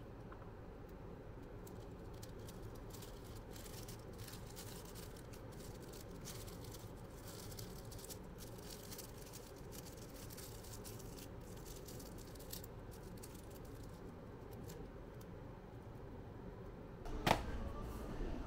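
Faint steady background noise with light scattered clicks and rustles. A sharp click comes about a second before the end, and music starts right after it.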